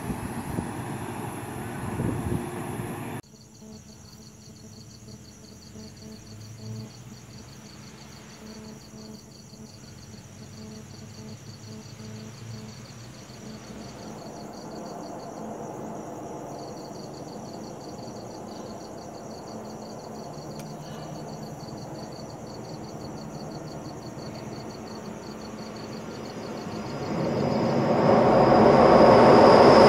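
A train running, cut off abruptly about three seconds in; then night insects chirping with a steady pulsing high trill; near the end an approaching train grows quickly louder.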